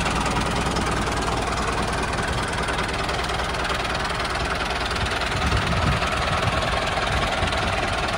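Small engine of a mini tractor running steadily.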